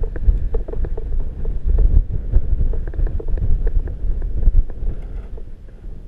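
Strong, gusty wind buffeting the microphone, a heavy rumble that swells and eases, with many small ticks and rattles on top.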